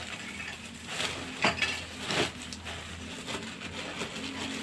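Rustling and crinkling of a small tinsel-and-foil decorated Christmas tree and the plastic bag around it as it is handled, with two louder rustles about one and a half and two seconds in.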